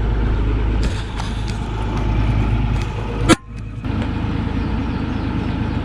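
An engine running steadily with a low rumble. A sharp click comes about three seconds in, then a brief drop before the engine sound picks up again.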